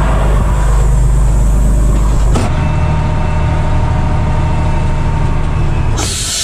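Semi truck's diesel engine running, heard from inside the cab, its low note changing about two and a half seconds in. Near the end a loud hiss of air from the truck's air brake system as the brakes are set.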